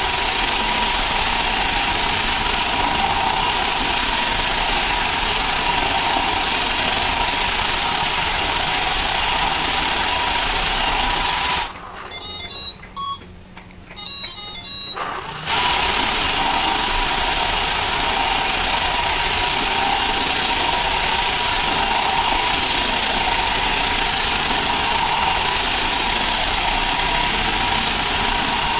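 Roomba robot vacuum running, a steady drone of its vacuum motor and brushes with a hum running through it. About twelve seconds in the drone cuts out for about four seconds, a few short high beeps sound in the gap, then it starts again.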